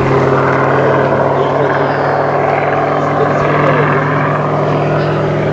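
Piston engine of a large-scale radio-controlled propeller model aircraft running steadily in flight, a constant even drone.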